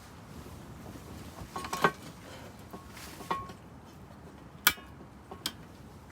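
A few sharp clinks and knocks of hard objects being handled, some with a brief ring, spread about a second apart; the loudest comes about two-thirds of the way through.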